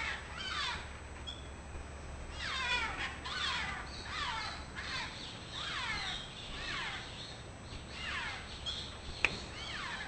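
Maroon-bellied conures giving a run of harsh calls, each one dropping in pitch, several overlapping. A single sharp click comes near the end.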